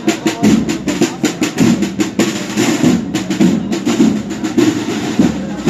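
Processional wind band playing a Holy Week march, its snare drums beating and rolling in quick strokes over the sustained band.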